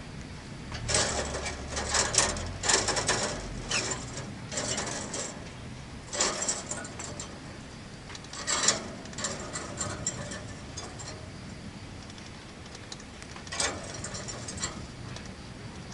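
Caged peach-faced lovebirds making bouts of harsh, scratchy chatter and rattling, in several short bursts, with a low rumble under the first few seconds.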